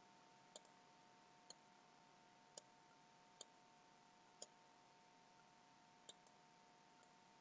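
Near silence with about six faint, sharp clicks at irregular intervals, typical of clicking while working a computer, over a faint steady tone.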